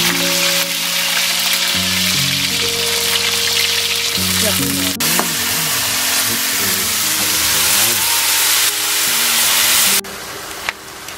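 Onions and leafy greens frying in hot oil in a wok, a loud steady sizzle as they are stirred with a ladle. The sizzle drops off sharply about ten seconds in, as raw goat meat is pushed into the pan. Background music with held notes plays underneath.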